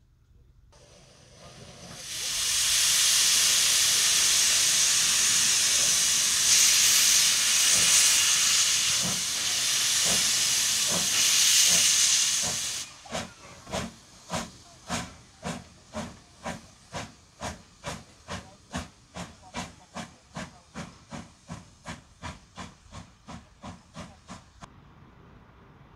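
Energie 507 steam tank locomotive starting away with its train: a loud steam hiss rises about a second in and lasts some ten seconds, with steam blowing out at the cylinders. It then gives way to a regular run of exhaust chuffs, about two to three a second, fading as the locomotive pulls away until they stop near the end.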